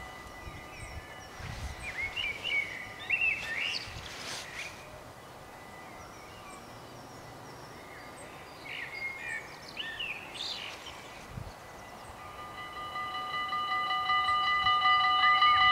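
Small birds chirping in bursts, then about twelve seconds in the electronic warning bell of a Dutch automatic level crossing starts ringing rapidly and grows louder as the crossing activates.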